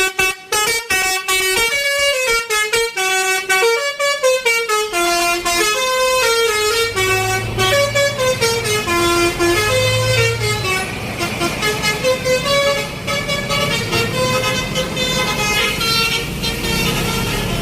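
Indonesian 'telolet' bus horn, a multi-tone musical air horn, playing quick stepped melodies of short notes. From about six seconds in, a low engine rumble runs underneath.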